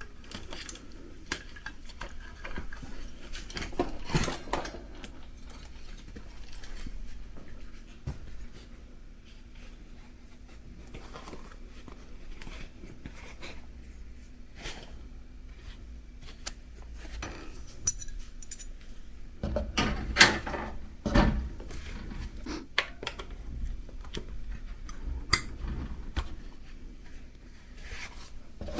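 Metal clinks, clicks and knocks of hand tools on a folding bicycle's rear wheel and frame as the wheel is taken off and work on the tyre begins, with a cluster of louder knocks about twenty seconds in.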